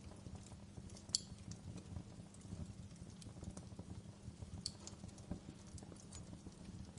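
Wood fire crackling in a fireplace: irregular sharp pops and snaps over a low steady rumble of flames, with the loudest pop just after a second in.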